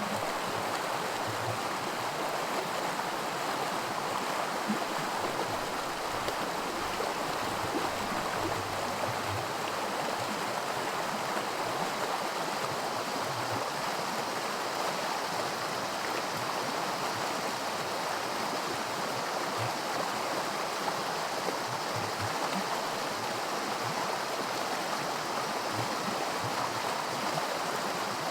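A small woodland creek rushing over rocks in a stretch of miniature white water: a steady, even splashing and rushing of running water.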